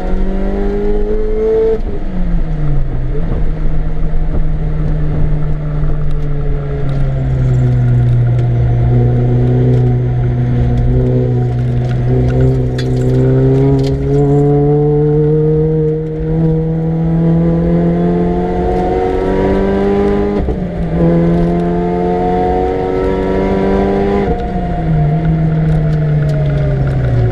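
Supercharged 1.6-litre four-cylinder engine of a Mini Cooper S R53 driven hard on track, its pitch climbing under load for long stretches. The revs dip sharply about two seconds in and again about twenty seconds in, and fall away near the end as it comes off the throttle.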